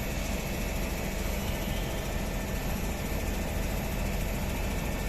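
Daikin 4-ton inverter AC outdoor unit running steadily: its compressor and two condenser fans give a steady low hum under an even wash of fan noise. The unit is running normally after its outdoor PCB repair.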